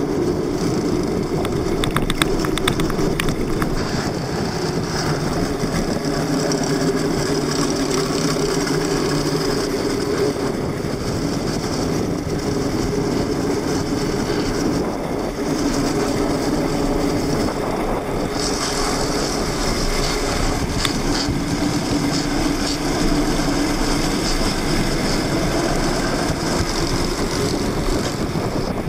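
Plastic wheels of Hot Wheels XL pedal go-karts rolling fast down asphalt: a steady rolling rumble with a hum that wavers in pitch.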